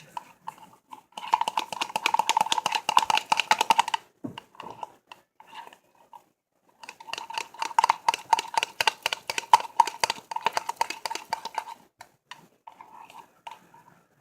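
A utensil stirring fast in a container, rapid clicking and tapping against its sides, in two spells of a few seconds with a pause between, as glue and laundry detergent are mixed into slime.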